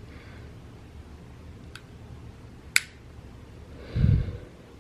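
Glock 43 pistol's SSVI Tyr trigger dry-firing: a faint tick, then one sharp snap of the trigger mechanism about two and three-quarter seconds in. A softer low thump follows near the end.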